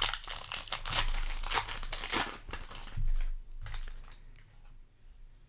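Foil Yu-Gi-Oh! booster pack wrapper being crinkled and torn open, a dense flurry of crackles for about three seconds, then quieter rustling as the pack falls open.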